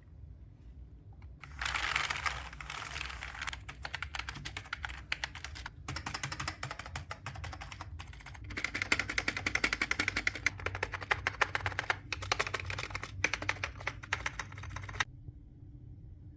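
Rapid typing on a Dell SK-8115 membrane (non-mechanical) keyboard: a fast run of soft key presses that starts about a second and a half in, gets louder and denser in the second half, and stops about a second before the end.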